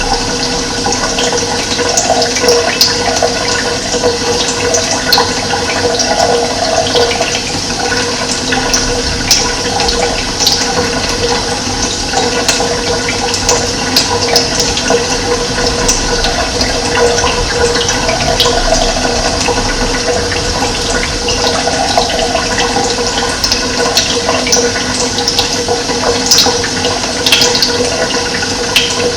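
Running water, a loud, steady, continuous flow, with short high-pitched ticks scattered through it.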